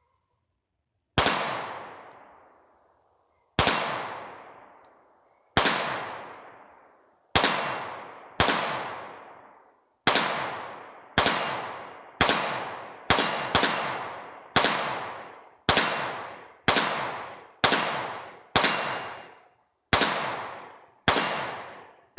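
Canik TP9SA 9mm pistol fired about eighteen times at an irregular pace of roughly one shot a second, each shot followed by a long fading ring-out. The pistol cycles through the whole magazine without a stoppage, showing that the feed-ramp repair worked.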